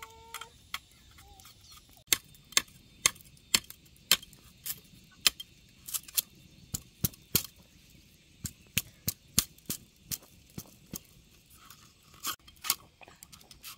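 A series of sharp knocks or strikes, about two a second, with a few short pauses.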